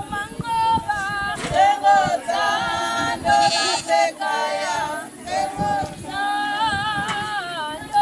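A group of voices singing a Zulu ceremonial song without instruments. A high lead voice is held over others.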